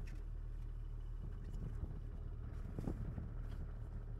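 Four-wheel drive travelling on a dirt track, heard from inside the cab: a steady low engine and road rumble, with a few short knocks and rattles from the bumpy track, the clearest about three seconds in.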